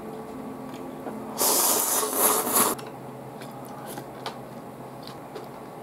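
A man slurping chilled salt ramen noodles in one loud, noisy draw lasting just over a second, a little over a second in, with a few faint clicks of eating before and after.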